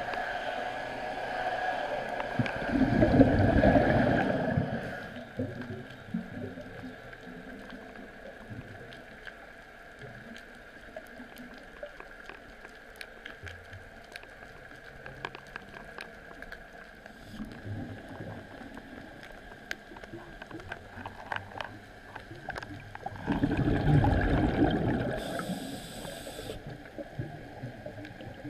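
Underwater sound of a scuba diver's regulator exhaling a rush of bubbles twice, about three seconds in and again near the end. Between the two exhalations there is a quieter underwater hiss with scattered faint clicks.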